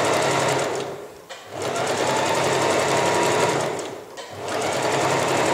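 Household electric sewing machine stitching a zipper tape onto fabric, running at a steady pace and stopping briefly twice, about a second in and again after about four seconds.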